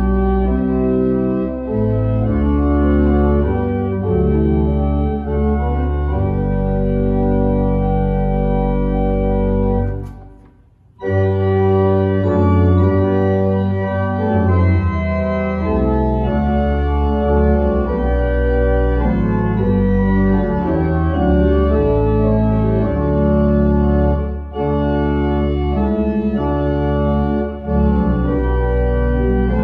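Church pipe organ playing in sustained full chords with deep pedal bass. The playing stops for about a second some ten seconds in, then resumes.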